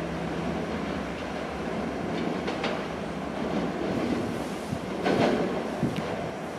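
Toronto TTC subway train running on the rails: a steady rumble with wheel clatter and a few sharp clicks.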